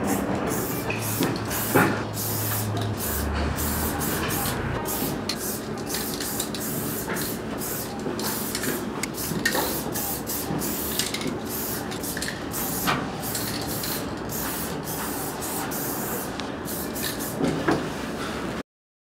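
Aerosol spray paint can hissing as paint is sprayed onto a wall, in a run of short and longer bursts with brief breaks between strokes. The sound cuts off suddenly near the end.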